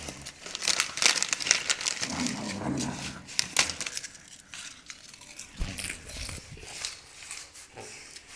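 Rustling and crackling close to the microphone, with many sharp clicks, busiest in the first half.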